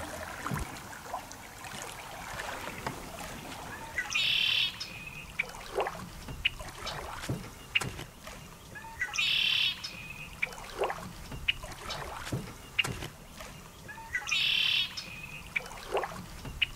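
A bird calls three times, about five seconds apart, each call a buzzy, rasping note lasting about a second. Short chirps and ticks fall between the calls.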